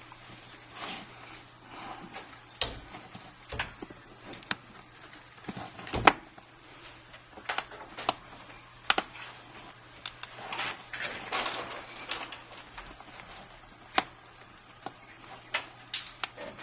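Scattered small clicks and taps from handling an iPhone 5 as its screen assembly is pressed and snapped into the frame, the sharpest knock about six seconds in, over a faint steady hum.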